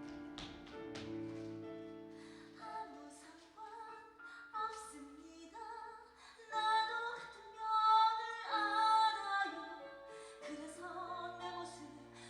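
A woman singing a musical-theatre song over instrumental accompaniment, with long held notes in vibrato that are loudest around the middle.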